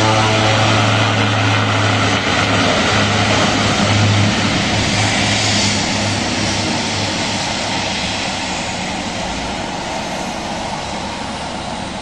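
Twin-engine turboprop plane on its takeoff roll, moving away down the runway. A steady propeller hum is heard for the first few seconds, then it gives way to a broader engine noise that slowly fades as the plane draws off.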